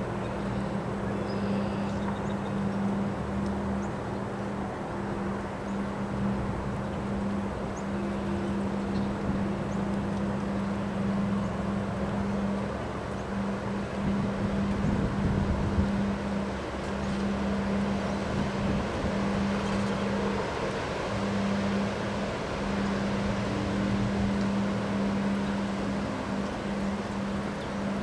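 Windstorm gusting through bare trees as a steady rushing noise, with a stronger gust about halfway through. A steady low hum runs underneath and breaks off now and then.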